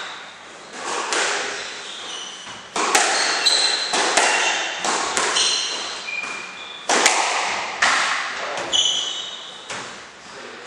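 A squash rally: the ball cracks off rackets and the walls in a quick, irregular run of sharp hits, each echoing in the enclosed court. Short high squeaks of shoes on the court floor sound between the hits.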